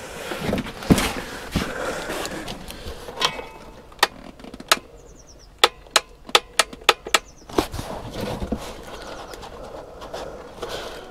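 Rustling and handling, then a run of sharp clicks, several in quick succession, from a power switch being flicked on and off. Nothing starts because the machine's lead has no power.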